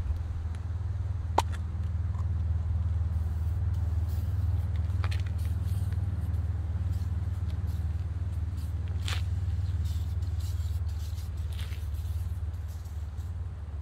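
A steady low rumble, with a few sharp clicks and knocks as gear is handled at a motor scooter's seat and storage.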